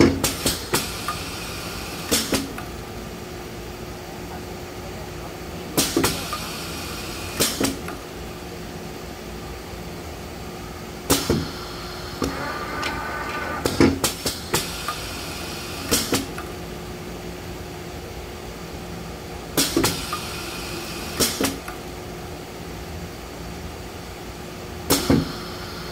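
Sock printing machine cycling: every five or six seconds a cluster of sharp metal clacks, several with a short hiss, over a steady machine hum.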